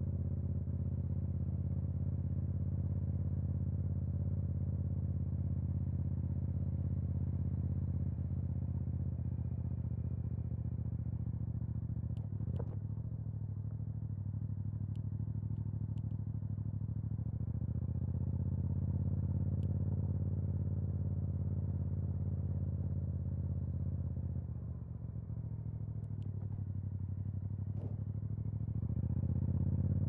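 Yamaha MT-07's parallel-twin engine running through an Akrapovic exhaust as the bike is ridden, holding a steady note, easing off briefly a little after two-thirds of the way through, then climbing in pitch and loudness near the end as it accelerates. A few short sharp clicks sound in the middle stretch.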